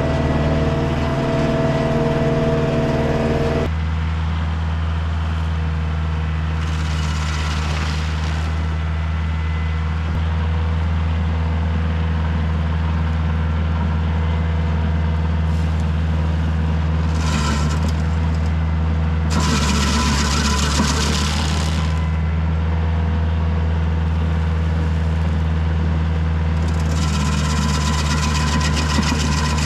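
Kioti DK40se tractor's diesel engine running steadily as it drives a Woodland Mills WG24 PTO stump grinder, heard from inside the cab for the first few seconds. Then come four bursts of harsh grinding noise as the cutter wheel chews into a red pine stump.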